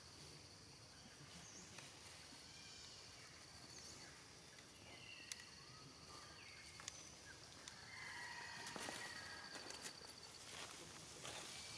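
Quiet forest ambience: faint scattered bird chirps and short high calls, with a few light clicks, a little busier near the end.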